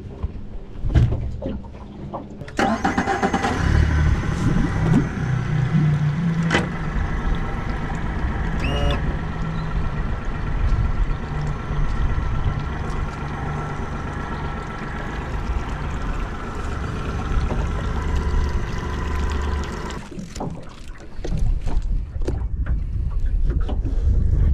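Boat motor running steadily. It comes in abruptly about two and a half seconds in and stops suddenly near the end, with a few knocks before it.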